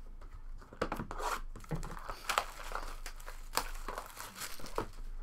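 Clear plastic shrink wrap crinkling and tearing as it is pulled off a sealed trading card box. The crackling is irregular, with a few sharp snaps.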